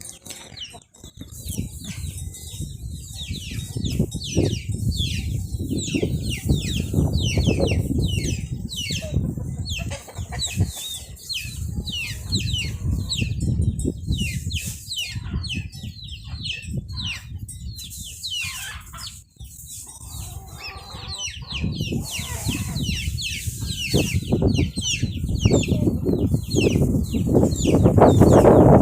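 Farmyard chickens calling, with many rapid, high, downward-sweeping chirps repeated throughout, over a steady low rumble.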